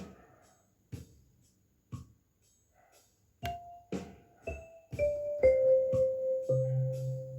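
Intro music on keyboard. It opens with soft knocks about once a second, then struck notes step down in pitch about twice a second, and it settles on a held low chord near the end.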